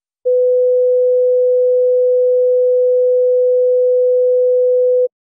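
Steady 500 Hz sine tone from SuperCollider's Fb1_ODE, which integrates a harmonic-oscillator differential equation in real time to make a stereo pair of 90-degree-shifted sine waves. It starts abruptly a moment in and cuts off just before the end.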